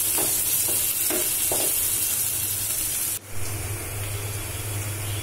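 Chopped onions sizzling in hot oil in a non-stick frying pan while a wooden spatula stirs and scrapes them in four short strokes in the first two seconds. About three seconds in, the sound breaks off abruptly and comes back as a quieter sizzle over a steady low hum.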